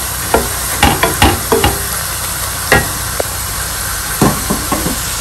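Wooden spatula stirring and knocking against a nonstick pan as browned onions fry in oil with spices, over a steady sizzle. The knocks come in irregular clusters, several in the first three seconds and another few near the end.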